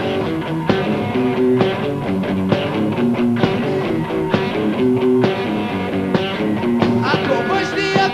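Live rock band playing: an electric guitar riff repeats over bass guitar and drums, with drum hits about once a second. A wavering high melody line comes in near the end.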